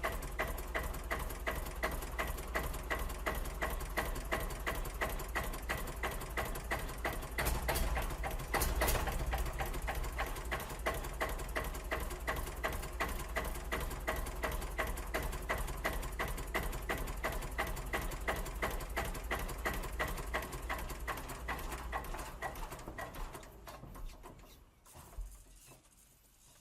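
Tractor running with a fast, even chugging. It swells briefly about a third of the way in, then fades away near the end.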